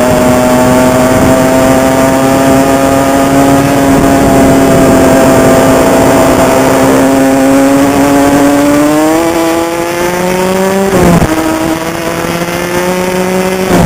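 Honda CR85's two-stroke single-cylinder engine running hard under way, held at steady high revs for several seconds, then rising in pitch as it revs up. Just after the rise it cuts off abruptly for a moment, then comes back and runs on steadily.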